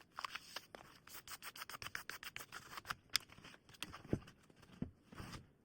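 Faint, irregular rubbing and scratching with many sharp little clicks.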